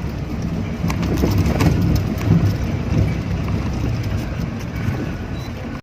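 Old four-wheel-drive vehicle crawling over a bumpy dirt trail: a low, uneven rumble of engine and tyres with scattered knocks from the body jolting over the ruts, heard from inside the cabin.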